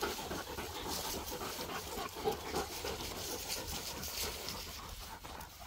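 A dog panting hard with its mouth open.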